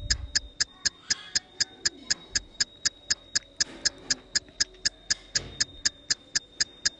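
Even, rapid ticking, like a clock or countdown timer, about four ticks a second, over a faint steady high whine.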